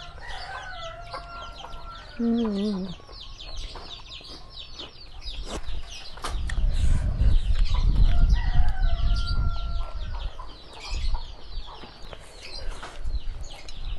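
Chickens clucking and calling nearby, with a constant chatter of quick high chirps and a drawn-out wavering call about two seconds in. A low rumble swells through the middle and is the loudest thing heard.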